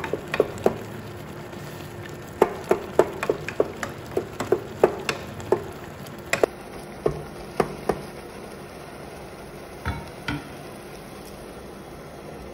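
Wooden spatula knocking and scraping against a saucepan while stirring chopped tomatoes: a run of sharp knocks about two a second, then two more knocks a little later.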